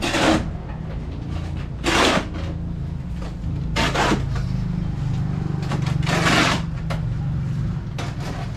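Engine-driven concrete mixer running steadily, with a loud rush of tumbling sand, gravel and cement about every two seconds as the drum turns.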